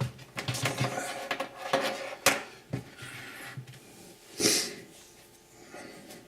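Plastic clicks and knocks from a cheap LED USB gaming keyboard being handled and set down on a desk, with a sharp knock a little over two seconds in. A short rustle follows about four and a half seconds in.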